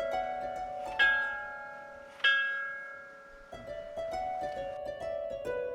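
Background music played on plucked strings: a few strong notes ring out and fade, then a run of quicker short plucked notes about midway through.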